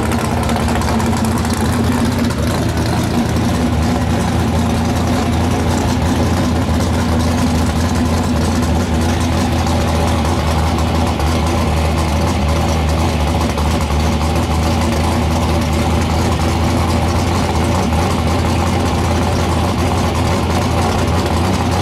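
Drag race car's engine idling loudly and steadily at one pitch, with no revving.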